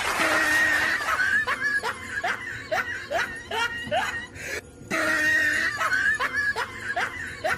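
Laughter: a high held squeal, then a run of short rising laughs about two a second. The whole laugh is heard twice over, with a short break between.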